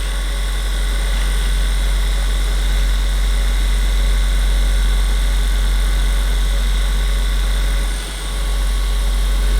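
Handheld percussion massager running steadily with a deep buzzing hum, dipping briefly about eight seconds in.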